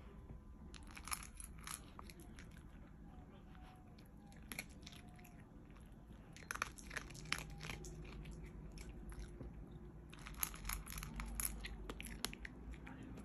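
Miniature pinscher crunching dry kibble from a stainless steel bowl, in three bouts of sharp crunches with short pauses between.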